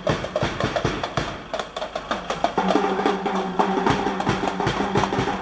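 Live drumming with dense, rapid strikes. About halfway in, a held pitched note from another instrument joins it.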